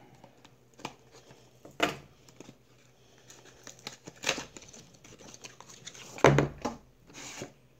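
Rustling and crinkling of a small cardboard eyeglasses box and its packing being handled and opened, in short scattered bursts. A louder thump comes about six seconds in.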